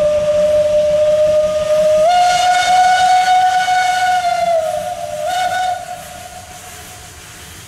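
Steam locomotive whistle, the Bodensee-Toggenburg Eb 3/5 9, blowing one long call: a steady note that steps up to a higher pitch about two seconds in, dips briefly and rises again, then fades away near the end.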